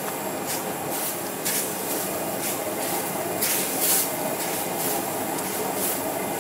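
Noodles and bean sprouts sizzling and steaming in a large hot wok under a horseshoe crab shell, with repeated bursts of hiss over a steady rushing noise. The loudest burst of hiss comes a little before the middle.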